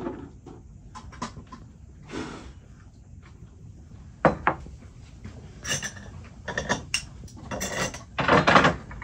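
Glassware set down on a wooden table: a few light clinks, then a sharp knock about four seconds in as a stemmed glass bowl goes down. Scattered clatter of small glass dishes and a spoon follows.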